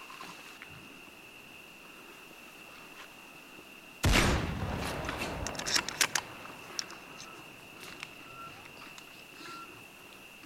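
A single loud gunshot about four seconds in, echoing and fading away over several seconds, with a few sharp clicks in the tail. Under it runs a steady high-pitched drone.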